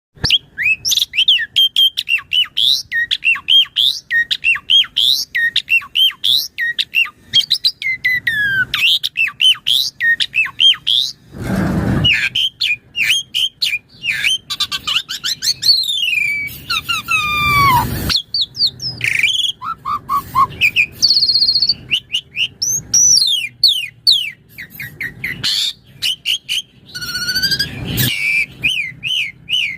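Asian pied starling singing vigorously: a fast, varied run of chirps, slurred whistles and gliding notes, broken by harsh, raspy squawks about twelve seconds in and again between sixteen and eighteen seconds.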